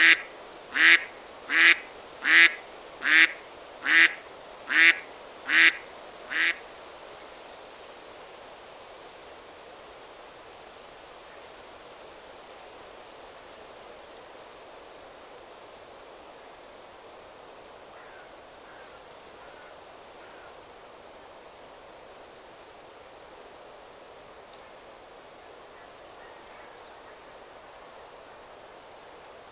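A duck quacking in an even series of about nine loud, harsh calls, roughly one a second, that stops about six seconds in. After it, a steady rush of wind in the trees with faint high chirps of small birds.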